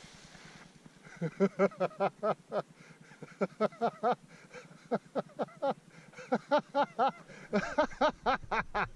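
A person laughing hard in repeated bursts of 'ha-ha-ha', about four or five laughs a second, starting about a second in.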